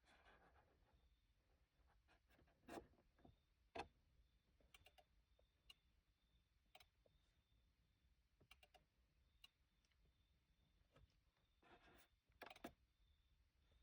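Faint, scattered clicks of a handheld GM Tech 2 scan tool's keypad buttons being pressed while scrolling through menus, with a few sharper presses about three seconds in, about four seconds in and near the end, over near silence.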